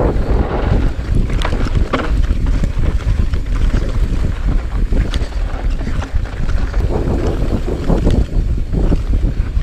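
Heavy wind buffeting the camera microphone as a mountain bike rolls fast down dirt singletrack, with tyre rumble and a few sharp rattles and clacks from the bike over bumps.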